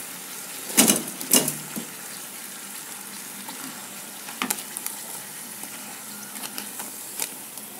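Hot cooking oil in a frying pan sizzling steadily around tempe and wonton-skin fritters; the burner has been switched off, so the oil is still sizzling as it cools. Two sharp clacks come about a second in, and a few lighter clicks follow later, as a metal wire strainer and chopsticks knock against the pan.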